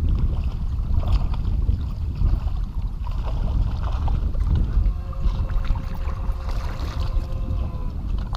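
Steady low rumble of wind on the microphone and water moving around an open boat. A faint steady whine joins it from about five to eight seconds in.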